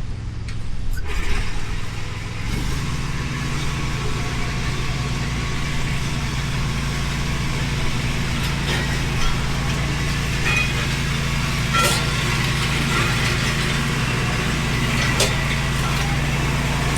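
Zero-turn mower engine running steadily, its pitch stepping up a little about two and a half seconds in, with a few sharp knocks over it.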